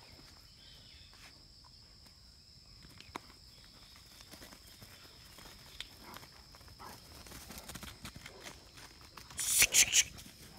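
A Great Dane and a Mudhol Hound scuffling and padding about on grass and dry leaves in play, with scattered small rustles and clicks over a steady faint high whine. Near the end comes a short burst of loud close rustling and knocks as the Great Dane brushes right against the phone.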